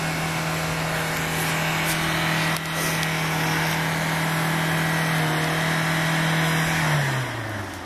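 Truck engine held at steady high revs as the truck, stuck on ice, fails to climb the snowy hill. About seven seconds in, the revs drop away and the engine note falls.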